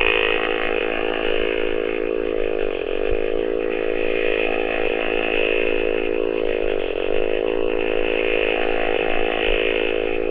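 A long, unbroken buzzing fart noise, presented as the dog's 'longest fart', with a slight dip about every four seconds.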